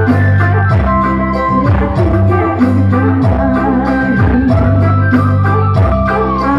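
Live music played loud through a PA speaker: an electronic keyboard with an organ sound holding chords over a steady electronic drum beat, with a woman singing into a hand microphone.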